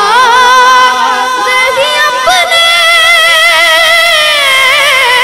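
A boy's high voice singing a naat through a microphone, unaccompanied, in long held notes that waver and slide.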